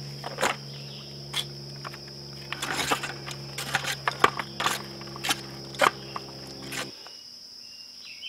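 A steady high insect drone, with scattered clicks, scuffs and knocks of hands and a paint roller working in gravel at the foot of a cinder-block wall. A low steady hum underneath cuts off about seven seconds in.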